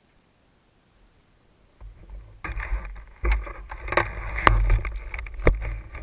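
A helmet-mounted camera being handled as the rider takes the helmet off. About two seconds in come rubbing and scraping on the microphone with a low rumble, broken by several sharp knocks.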